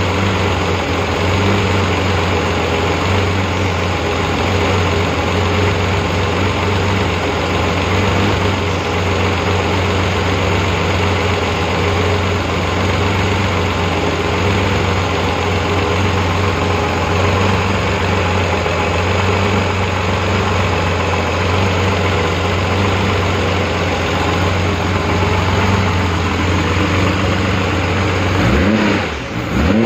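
Rebuilt Porsche 911 3.2 Carrera air-cooled flat-six idling steadily on a test stand at about 900 rpm. Near the end the throttle is blipped and the revs rise and fall.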